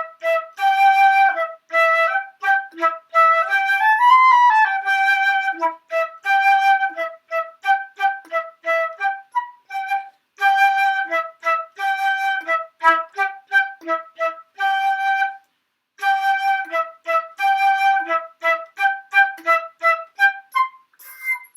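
Flute playing a simple melody in short, detached notes, with a quick slide up and back down about four seconds in and two brief breaks later on.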